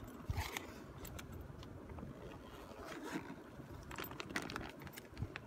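Coated fabric of a new Alpacka packraft's spray deck rustling and crinkling as it is handled, with many small clicks and taps.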